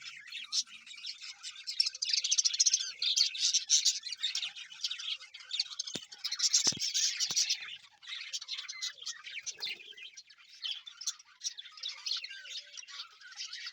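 A small flock of budgerigars chirping and warbling together, a dense, busy chatter that swells louder about two seconds in and again around six seconds. A few faint knocks sound among the chirping near the middle.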